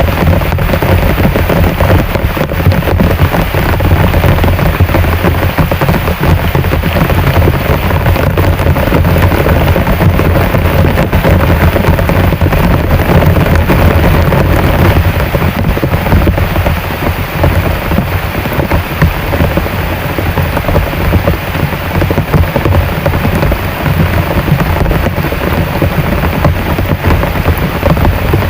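Heavy rain pouring down: a dense, steady hiss thick with sharp drop impacts, over a deep, continuous rumble.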